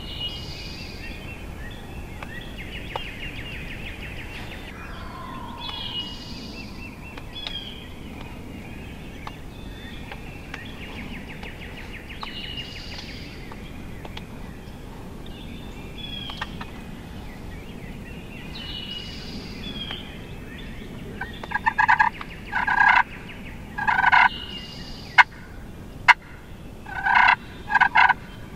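Songbirds chirping and trilling, then a wild turkey gobbler gobbling loudly at close range, several rattling gobbles in the last seven seconds.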